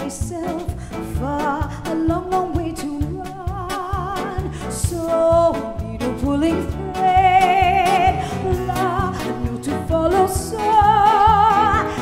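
A woman singing a melody with a live band. She holds long notes with a wide vibrato about seven seconds in and again near the end.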